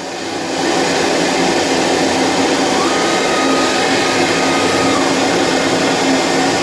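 CNC router running through its spindle warm-up with the vacuum hold-down table on: a steady mechanical drone that rises a little in the first second, then holds even, with a faint steady whine for a couple of seconds midway.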